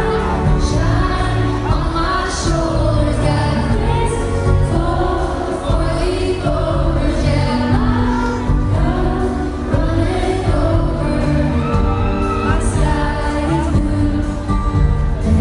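Live country band playing a song, with a woman singing lead over acoustic and electric guitars, heard from the audience in a theatre.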